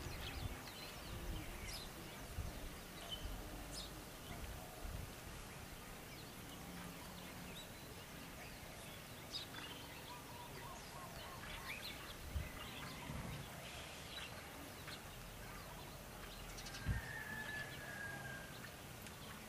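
Faint outdoor ambience with scattered short bird chirps and calls, and a few soft low bumps.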